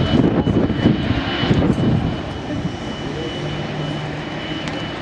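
Airbus A340-300's four CFM56 jet engines at takeoff power during the takeoff roll, heard from a distance as a crackling rumble. The rumble is heaviest over the first two seconds, then settles into a steadier hum.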